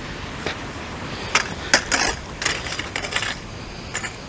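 Fishing reel ratcheting in irregular clicks and short rasping runs while a hooked carp is being fought in.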